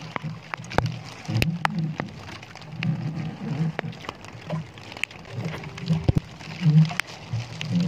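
Wind and waves around a small outrigger boat at sea: an uneven gusting rumble on the microphone with water slapping at the hull, and scattered sharp ticks throughout.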